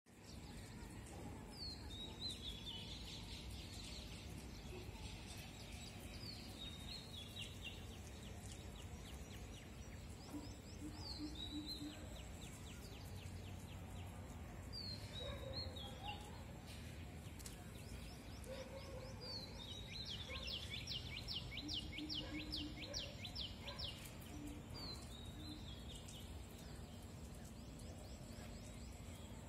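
A songbird repeating a short phrase every four or five seconds, each a falling note followed by a fast rattling trill, over steady background noise.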